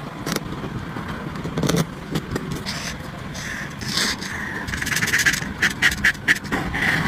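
Marker nib scratching and rubbing on textured paper, colouring in with many short strokes that come in a quick run about five seconds in.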